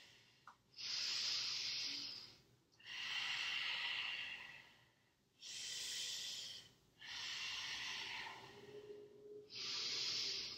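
A woman breathing audibly in and out in long, even breaths, about five in all, while holding a held yoga pose (a twisted chair pose).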